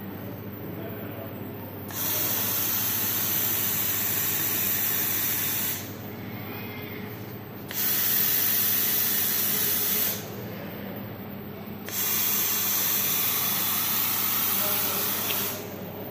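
Robot-arm fiber laser welding head hissing in three bursts of about four, two and a half and three and a half seconds, one per weld pass, each starting and stopping abruptly. A steady machine hum runs underneath between the passes.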